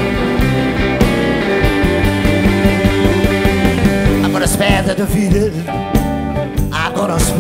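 Live electric blues-rock band playing an instrumental passage of the song, electric guitars over bass and drums, with a lead guitar sliding and bending its notes about halfway through and again near the end.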